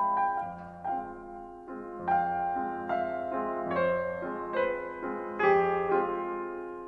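Slow, quiet piano music: notes and chords struck roughly once a second and left to ring, the sound fading away after the last strike near the end.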